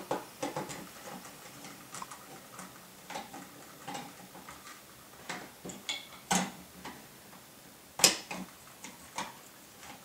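Scattered light clicks and ticks of a screwdriver working the screws of a plastic smoke-alarm mounting plate on a ceiling electrical box, with small plastic knocks. A sharper click comes about eight seconds in.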